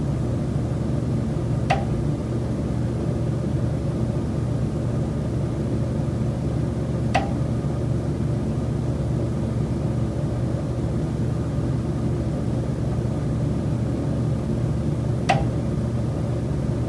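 Three sharp knocks from the condo building's structure, several seconds apart at uneven spacing, each with a brief metallic ring, over a steady low rumble. They are the recurring knock that the tenant says comes from the high-rise building's common elements.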